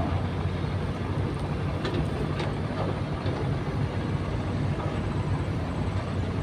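Steady low drone of an engine running, with a few faint clicks.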